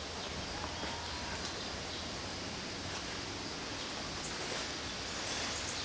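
Steady outdoor background hiss with a few faint, short high chirps in the second half.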